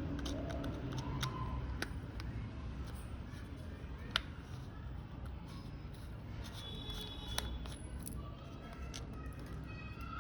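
A few sharp clicks and snips from a scrap USB cable and an adapter's DC lead being cut and handled, over low steady background noise; the loudest click comes about four seconds in.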